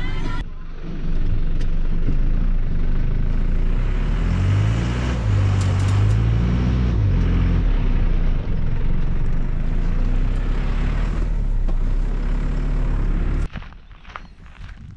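A vehicle's engine running as it moves slowly, heard from inside the cab, with the engine note rising and falling around the middle. About 13.5 seconds in it cuts off abruptly, giving way to a much quieter outdoor sound with a few light footsteps.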